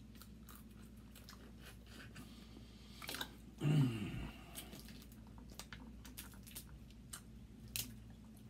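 Close-miked eating of king crab: chewing and smacking with many short, sharp clicks and crunches of crab shell being handled and cracked. A short low hum of voice about three and a half seconds in is the loudest moment.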